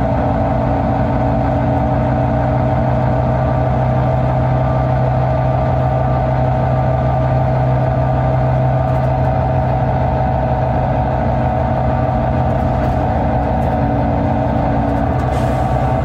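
Volvo B9TL bus's 9.36-litre Volvo D9B diesel engine running steadily, one unchanging engine note with no gear changes or revving.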